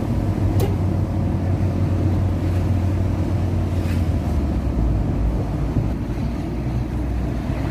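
A vehicle's engine runs steadily at speed, with road and wind noise, heard from inside the cab; the engine note drops lower about halfway through.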